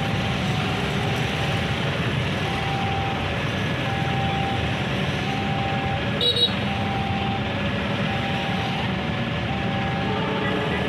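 Steady low rumble of rail and road traffic around a railway station, with a faint beep repeating about once a second and one short click about six seconds in.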